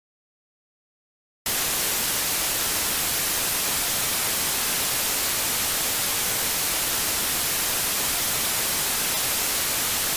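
Dead silence, then about a second and a half in a loud, steady static hiss, like white noise, cuts in abruptly and holds unchanged.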